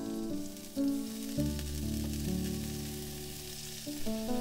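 Red wine vinegar sizzling as it hits a hot wok coated with browned meat bits, deglazing the pan, over background music.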